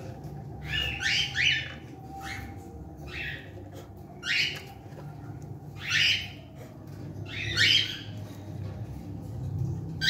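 Cockatiels squawking: short, harsh calls, a quick run of three about a second in, then single calls roughly every second and a half.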